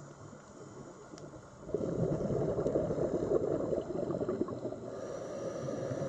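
Scuba diver's exhaled breath bubbling out of the regulator, heard underwater: a dense gurgling rush of bubbles that starts about two seconds in and lasts about four seconds.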